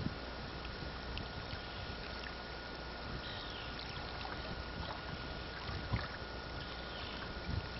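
Steady wash of river water with a faint steady high tone running through it, broken by a few low thumps: at the start, about six seconds in, and near the end.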